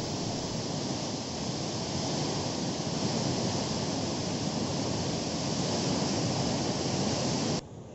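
Floodwater released through a dam's open spillway gates, rushing and churning in a steady roar; it cuts off abruptly near the end.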